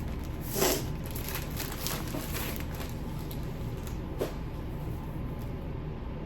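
Packaging rustling and crinkling as it is handled, with a louder rustle just under a second in and a short sharp click about four seconds in, over a steady low hum.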